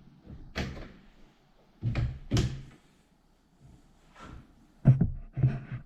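A handful of separate hard clunks and knocks, spaced irregularly, as a Milwaukee Packout case is worked onto its aluminium mounting plate and checked for fit.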